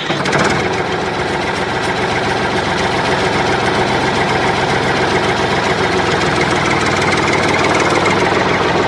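An engine running steadily at idle with a fast, even knocking chatter, growing slightly louder over the first few seconds.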